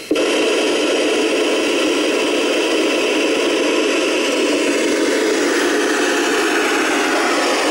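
Loud, steady hiss of FM radio static from an amateur radio receiver. It starts abruptly the moment the ISS stops transmitting between answers, leaving the receiver with no signal.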